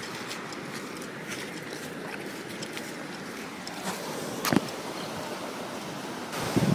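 Steady wash of surf and moving water, with one sharp knock about four and a half seconds in.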